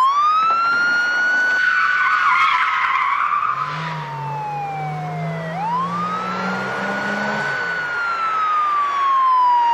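Police siren wailing on a speeding car: it sweeps up quickly, then slides slowly down, twice. Tyres screech briefly about two seconds in, and the car's engine rises as it passes.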